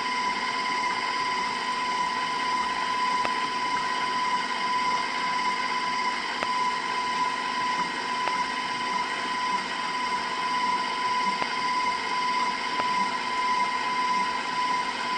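KitchenAid stand mixer running at a steady speed, beating lemon custard batter in its steel bowl; the motor gives a steady high whine.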